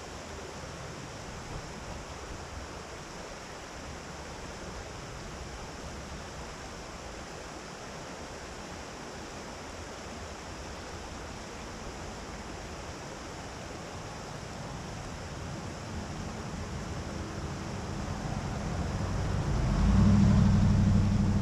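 Steady rushing noise. Over the last few seconds an engine grows louder, with a low steady hum, peaking just before the end.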